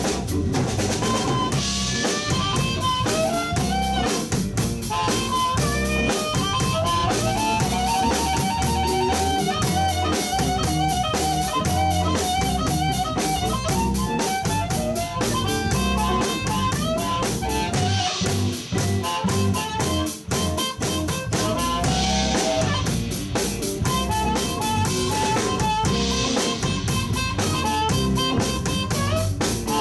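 Live blues band playing an instrumental break: a drum kit and bass keep a steady shuffle while a harmonica solos over them with long held, bending and warbling notes, with electric guitar underneath.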